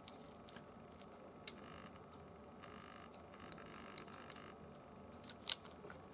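Scattered light clicks and ticks of small steel balls knocking together as a magnetic viewing film is pushed and slid over them, over a faint hiss. The sharpest click comes about five and a half seconds in.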